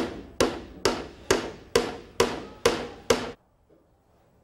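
Hand hammer driving a nail into wood: eight steady blows about two a second, each with a short ringing note, stopping about three and a half seconds in.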